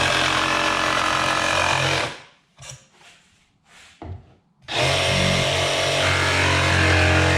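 A power tool's motor running steadily, stopping about two seconds in and starting up again near five seconds, with a few faint clicks in the pause.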